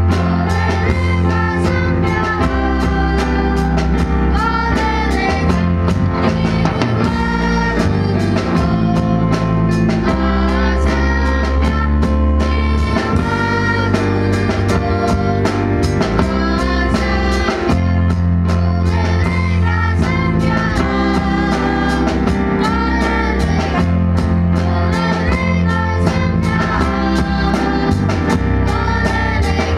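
A song with singing over guitar and drums, with a steady beat and a bass line.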